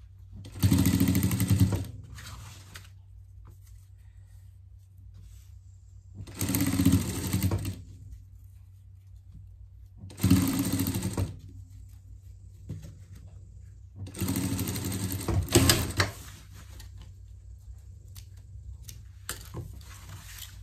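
Industrial straight-stitch sewing machine stitching piping onto fabric in four short runs of about one to two seconds each, stopping between runs. A low steady hum sits underneath.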